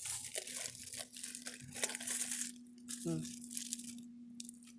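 Crinkling, rustling handling noise of small trade items and the log book being sorted in a geocache container, in a run of quick bursts over the first two and a half seconds, then quieter.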